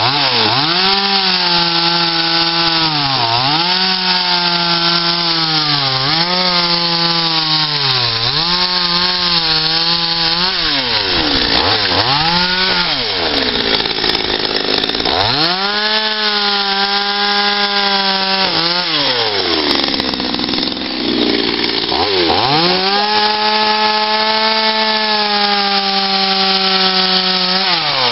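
Petrol two-stroke chainsaw cutting into a log while carving, revving up to full throttle and dropping back again and again. First comes a series of short revs every two to three seconds, then two longer held cuts in the second half with a lull between them.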